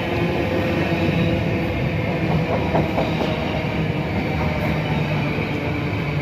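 Train running, a steady continuous rumble of rail noise.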